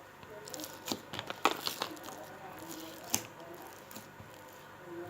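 Slime being squished and pulled, giving sticky pops and crackles: a quick cluster of sharp pops between about one and two seconds in, and one more loud pop about three seconds in.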